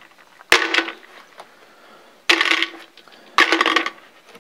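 Small steel set screws tossed a few at a time into a container, clattering and rattling three times.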